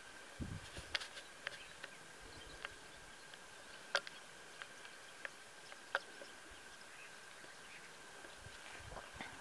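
Quiet countryside ambience: a faint steady high tone with scattered sharp ticks every second or so, and low thumps about half a second in and near the end.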